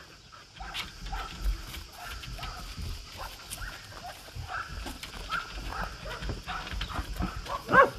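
Several dogs barking and yipping faintly in the distance, in short scattered calls over a low rumble on the microphone.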